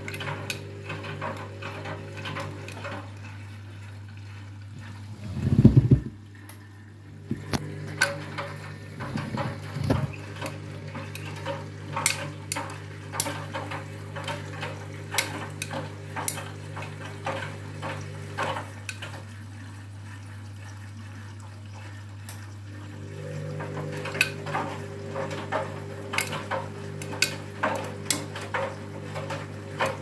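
Front-loading washing machine tumbling a load of backpacks in water on the main wash: a steady motor hum, water sloshing, and the backpacks' hard parts clicking and clattering against the drum. The tumbling stops twice for a few seconds and starts again, and a loud thump comes about six seconds in.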